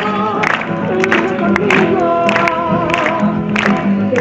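A group of voices singing a Spanish Catholic praise song together, over instrumental backing with a regular beat of sharp strikes.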